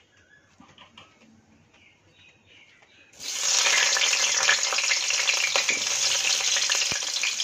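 Potato pieces drop into hot oil in a pan about three seconds in and start a loud, steady sizzle with fine crackling as they fry.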